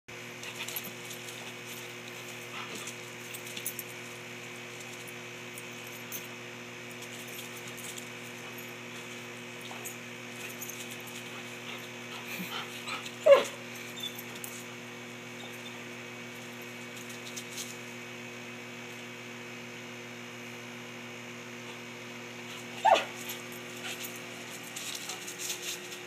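A German Shorthaired Pointer gives two short, loud vocal cries, one about halfway through and one near the end, about ten seconds apart, while going after a bird feeder.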